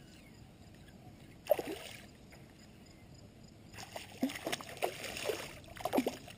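Water splashing as a hooked smallmouth bass thrashes at the surface while being landed: one sharp splash about a second and a half in, then a run of quick splashes and drips from about four seconds.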